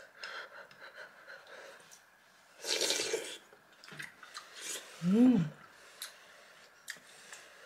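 Someone eating hot soup: a short breathy slurp about three seconds in, a few light spoon or chopstick clicks, and a brief hummed 'mm' that rises and falls in pitch just past five seconds.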